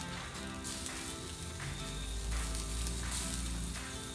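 Bacon-wrapped stuffed jalapeños sizzling on a grill grate over an open wood fire as they are turned with tongs, the bacon starting to sear.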